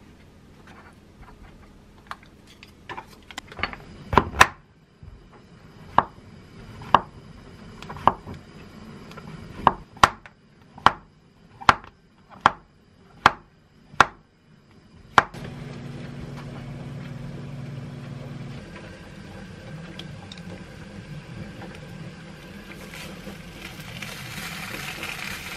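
A kitchen knife cutting through king oyster mushroom onto a wooden cutting board, about fifteen sharp strokes, most of them about a second apart. About fifteen seconds in the strokes stop and a steady hiss from the stove and frying pan takes over, with a low hum for the first few seconds. The hiss grows louder near the end as slices of duck meat go into the pan.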